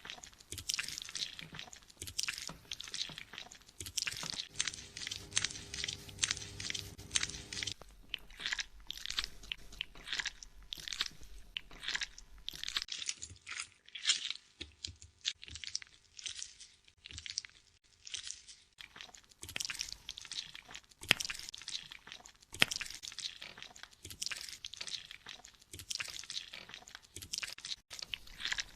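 Fingers scrubbing shampooed hair and scalp close to the microphone during a hair wash: a dense, rapid crackling and rustling that runs on without pause.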